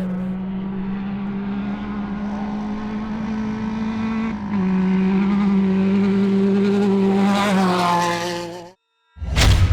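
Off-road race car engine running at a steady pitch, louder from about halfway in, with its pitch climbing briefly near the end before the sound cuts off abruptly. A whoosh follows right at the end.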